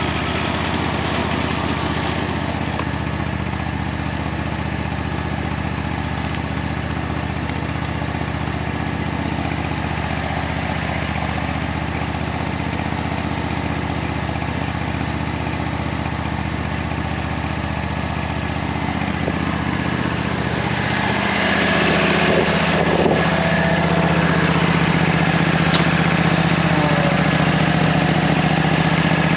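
An engine running steadily at idle. About two-thirds of the way through its note shifts up and it gets a little louder, as if it speeds up or comes under load.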